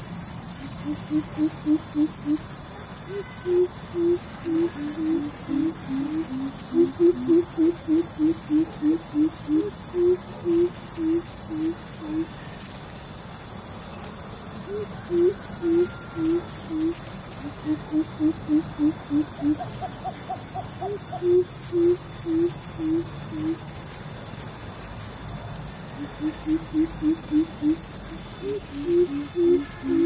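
Coucal calling: runs of deep, evenly spaced hoots at about four or five a second, with gaps between runs, and at times two series at different pitches overlapping. A steady high-pitched insect drone runs behind.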